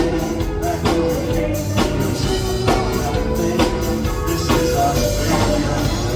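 Live rock band playing an instrumental passage between sung chorus lines: a steady drum beat with a strong hit a little under once a second, over sustained guitar and keyboard chords.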